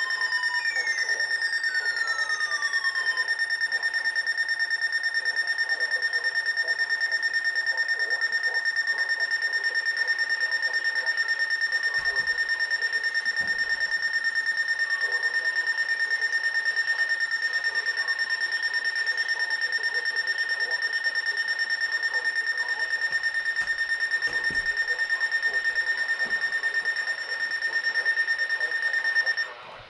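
Emergency alert alarm: a steady, high-pitched electronic tone, pulsing rapidly, that sounds for nearly the whole stretch and cuts off just before the end. A few falling sweeps are heard in the first seconds.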